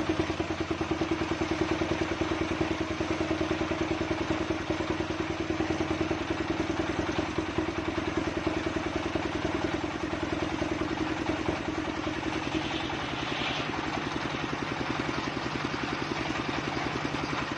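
Engine of a circular saw rig running steadily, with a fast, even firing beat that smooths out a little about twelve seconds in.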